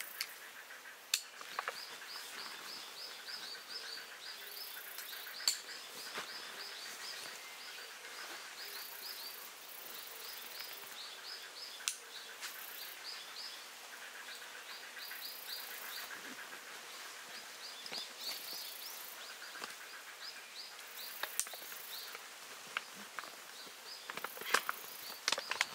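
Woodland ambience: a bird sings rapid runs of chirps, again and again, over bursts of high buzzing. Occasional sharp clicks and rustles come from the strap buckles of a dry bag being fastened, more of them near the end.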